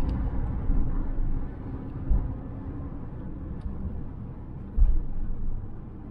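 Cab interior noise of a cargo van on the move: steady low road and engine rumble, with two short thumps from bumps about two and five seconds in.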